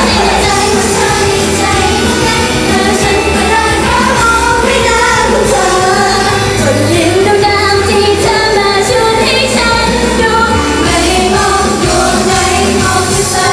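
Live pop music: young women of an idol group singing into handheld microphones over an upbeat instrumental accompaniment through the stage PA.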